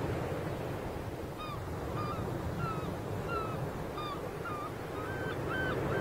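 Birds giving short, clipped calls, one to two a second, growing more frequent with several overlapping near the end, over a steady low background noise.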